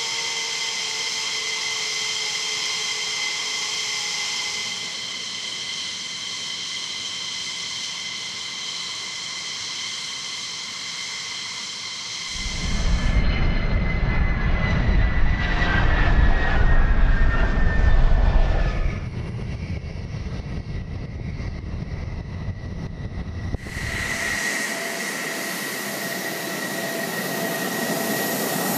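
Jet fighter engines whining at taxi power, several steady high tones over a hiss, from F-15E Strike Eagles. About twelve seconds in, a much louder, deep jet roar of a fighter taking off comes in and eases off after about six seconds. Near the end, an F-16's engine whines at idle with a high steady tone.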